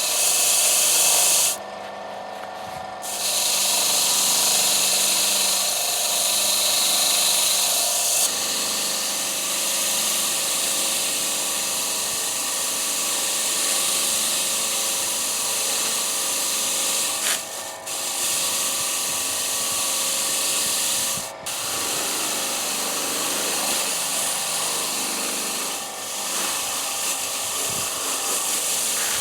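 Powered wire wheel scrubbing rust off steel parts, a continuous scraping hiss over the steady whine of the motor. It breaks off briefly about two seconds in and a few times later as the part is lifted away and put back.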